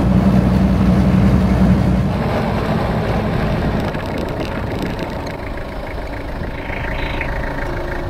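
Toyota Hilux engine and road noise heard from inside the cab while driving, a steady low hum. About two seconds in, the hum fades into a quieter, rougher noise.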